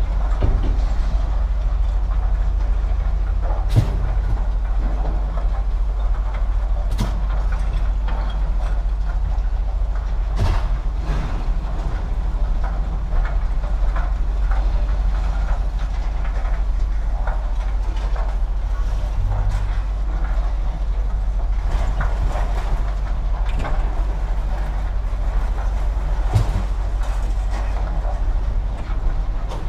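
Steady low rumble of a vehicle in motion, with scattered clicks and rattles throughout.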